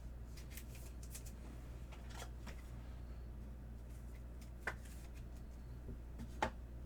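Trading cards being handled: faint sliding rustles and two sharper clicks, over a steady low hum.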